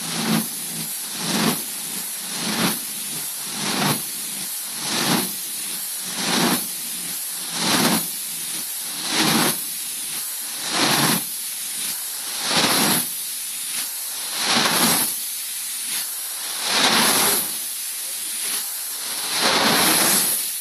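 The 1933 Burmeister & Wain H.C. Ørsted diesel engine puffing out rhythmic bursts of hissing air. The puffs come further and further apart, from about one a second at first to one every three seconds near the end, as the engine slows down.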